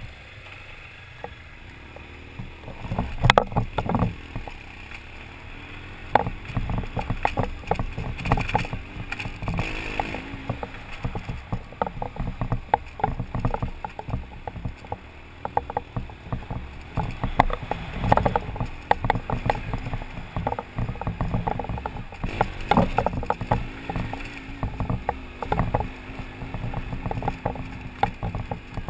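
BMW adventure motorcycle's engine running as it rides up a rough gravel track, with frequent knocks and rattles from the bike over the rocky surface. The loudest knocks come about three seconds in and again around eighteen and twenty-three seconds in.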